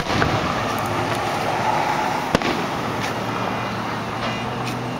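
Aerial fireworks shells bursting: a sharp bang right at the start and another a little over two seconds in, with fainter pops between and near the end, over steady background noise.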